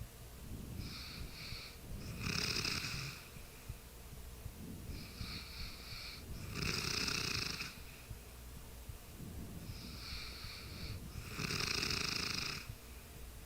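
A sleeping person snoring: three louder snores about four and a half seconds apart, with softer breaths between them.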